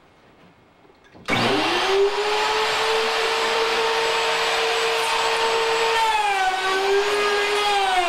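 An electric router in a mortising jig switches on about a second in, spins up quickly and runs with a steady high whine. From about six seconds in its pitch sags and wavers as it takes load, the bit cutting a mortise into the door edge.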